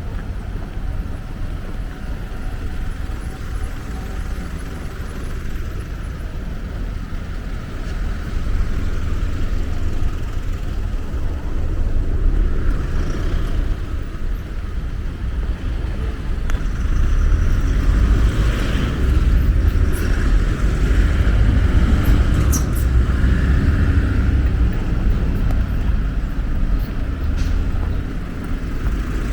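Outdoor ambience under a steady low rumble that grows louder about a third of the way in and again past the middle, with a few faint high ticks.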